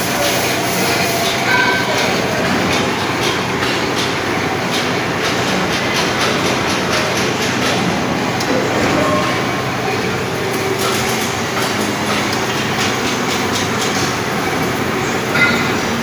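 Metal lathe turning a bogie part with a special cutting tool: steady machining noise, with many quick small clicks running through it.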